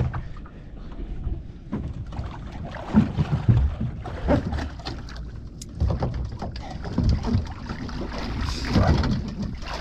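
Water sloshing and splashing against a small plywood boat's hull, with irregular heavy knocks and bumps as a swimmer hauls himself over the side into the rocking boat.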